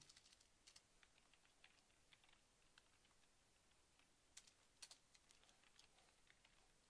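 Faint computer keyboard typing: irregular soft key clicks, with a couple of louder keystrokes a little past the middle.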